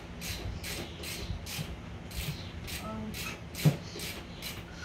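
Hand-tool work on a Suzuki ATV's front end: an even rhythm of short, high-pitched scraping strokes about two a second, and one sharp metal clank about three and a half seconds in.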